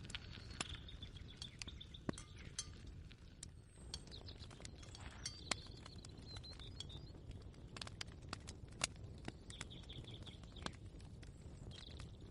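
Quiet kitchen ambience: a steady low rumble with scattered small clicks and crackles, and short high bird chirps a few times, near the start, in the middle and near the end.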